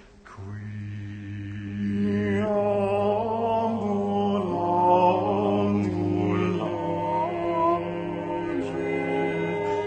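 Music: a slow sung chant over held low accompanying notes, the voices entering more fully about two and a half seconds in.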